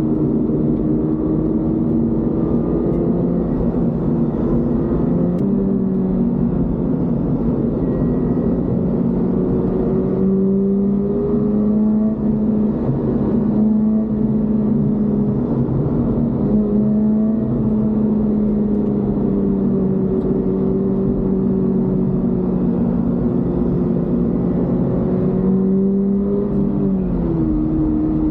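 Toyota GR86's 2.4-litre flat-four boxer engine pulling at fairly steady revs while driving, its pitch wavering gently, then dropping about a second before the end as the throttle comes off.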